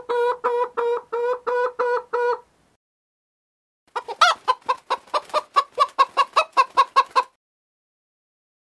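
Domestic chicken clucking: a run of about nine evenly spaced calls, a pause of about a second and a half, then a second, faster and more uneven run of clucks.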